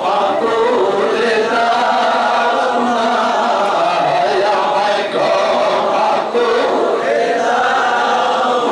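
A man's voice chanting a munajat supplication in a melodic, drawn-out style into a handheld microphone, continuous with only brief breaths.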